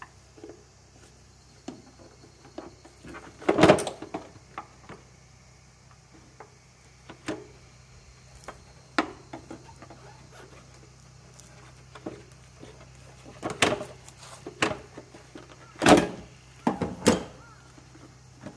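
Scattered metal clinks and knocks from a socket wrench on a long extension in a car engine's spark plug well, with parts being handled under the bonnet. The loudest clatters come about three and a half seconds in, at about thirteen and a half seconds, and twice near the end.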